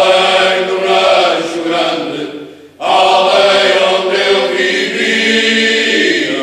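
Cante alentejano: a choir singing a traditional Alentejo song unaccompanied, in long held phrases. One phrase fades and a new one starts about three seconds in.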